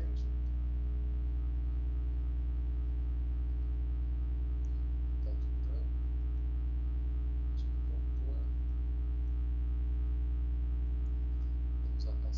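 Steady low electrical hum with a stack of overtones, mains hum on the recording line, with a few faint short ticks over it.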